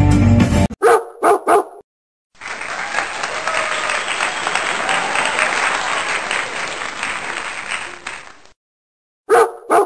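Live concert music cuts off in the first second. Three quick dog barks follow, then a short pause. About six seconds of crowd applause come next, then two more dog barks at the end.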